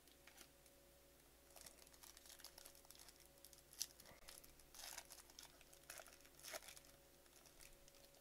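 Foil wrapper of a 2021 Bowman Baseball card pack being torn open and crinkled in the hands: faint, irregular crackling that starts about a second and a half in and dies away near the end, with one sharper snap partway through.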